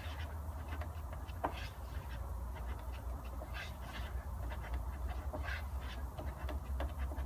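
Body filler (green fibreglass-reinforced 'kitty hair' filler) being mixed with a spreader on a mixing board: short squelching scrapes at an uneven pace, over a steady low hum.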